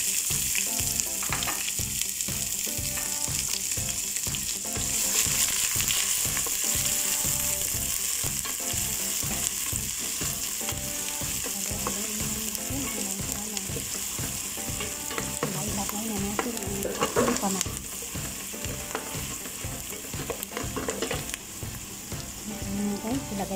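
Diced red onions sizzling in hot oil in a steel pot, stirred with a wooden spatula. The frying hiss swells about five seconds in.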